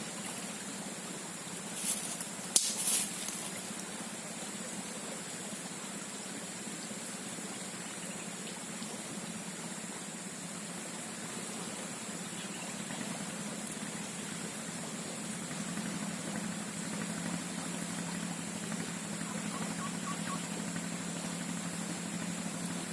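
Steady swamp ambience: a continuous high-pitched hiss with a low steady hum beneath it, broken by a few short, sharp noises about two to three seconds in.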